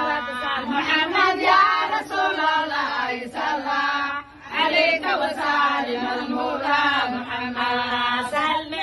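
Women's unaccompanied devotional chant in praise of the Prophet Muhammad, led by an elderly woman's voice, with a brief pause for breath about four seconds in.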